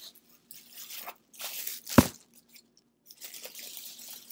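Tissue paper rustling and crinkling in short patches as a wrapped item is shaken and unwrapped, with one sharp knock about two seconds in, the loudest sound.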